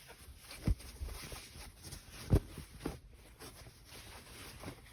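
Quiet handling of fabric and craft materials on a work table, with two light knocks, one shortly after the start and a slightly louder one a little past halfway.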